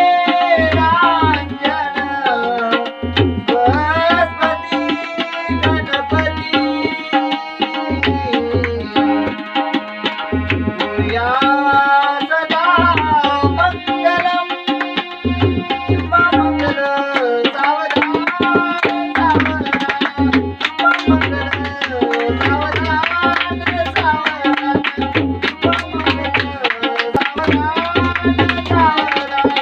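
Tabla played in a steady rhythm, with deep bass strokes from the larger drum, under sustained harmonium chords and a voice singing a melody with sliding pitch.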